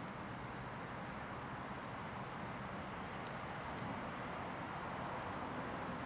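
Steady outdoor background: a high, even chorus of insects over a low, constant rumble.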